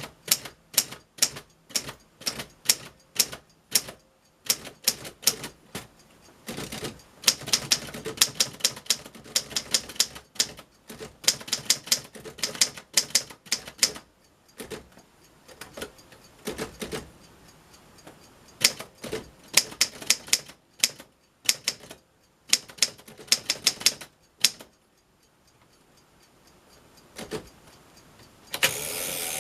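1946 Underwood Standard model SS manual typewriter being typed on: sharp typebar strikes, some single and some in quick runs, with short pauses between. Near the end there is a louder rasping sound about a second long.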